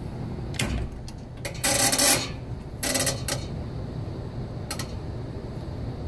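Mechanical timer dial on a Magic Chef top-load washing machine being turned: a few short clicks and a louder ratcheting rasp about two seconds in, with another about three seconds in.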